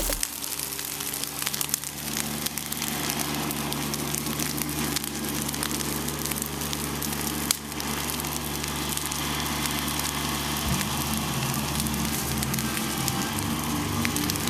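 A large outdoor brush-pile fire burning, with dense crackling and hissing and frequent small pops.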